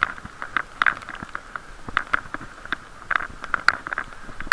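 Irregular clicks and taps on a camera's waterproof case, several a second, heard muffled and boxy through the housing while riding a bicycle in drizzle.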